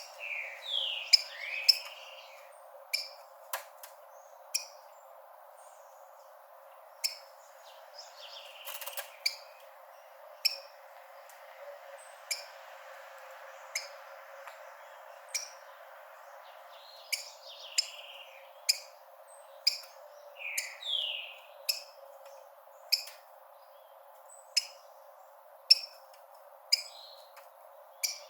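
Rufous-collared sparrow (tico-tico) calling: short, sharp high notes repeated about once a second, with a few slurred whistled song phrases in between.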